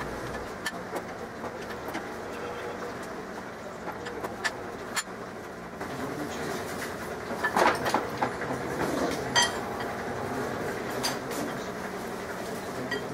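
Angle grinder with a wire brush running steadily against a steel pipe wrench, stripping off old paint and rust: a continuous whir and scrape with scattered sharp clicks as the brush catches the metal.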